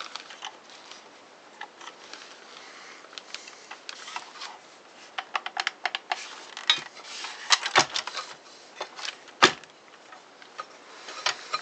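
Small metal saw parts and hand tools clicking, tapping and clinking as the circular saw is put back together by hand, in an irregular patter that grows busier about halfway through, with one sharper knock about nine and a half seconds in.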